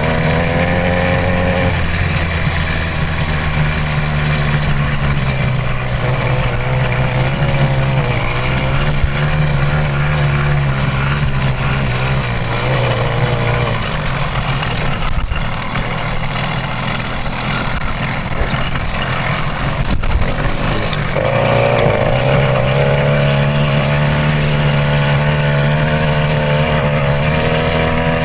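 66cc two-stroke motorized-bicycle engine running under way, its pitch rising and falling with the throttle. It eases off about halfway through and comes back strongly about three-quarters of the way in.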